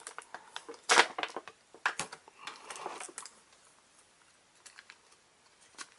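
Clear plastic bag crinkling and clicking as hands handle it and set it down on a table. There are a few sharp crackles and rustles in the first three seconds, then only scattered faint clicks.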